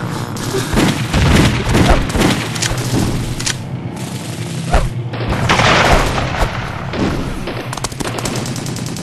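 Battle sound effects: rapid bursts of gunfire, machine-gun fire among them, mixed with heavy booms of explosions, over a low steady drone.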